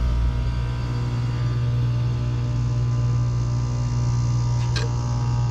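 Old Rheem R-22 heat pump running in defrost mode, its compressor giving a steady hum. A short light click sounds about five seconds in.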